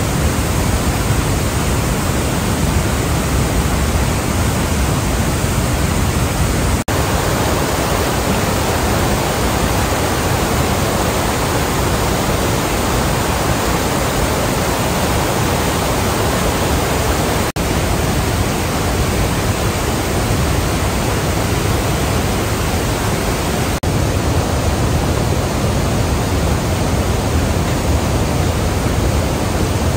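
Steady, dense rush of the Iguazú Falls cascades, heavy water pouring over the cliff edge, broken by three momentary dropouts.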